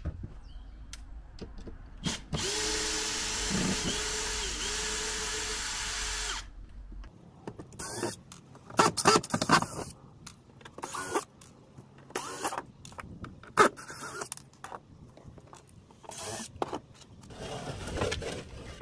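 Cordless drill-driver unscrewing a plywood panel: one run of about four seconds with the motor pitch dipping twice under load, then a string of short bursts and a few sharp knocks as the panel is worked loose.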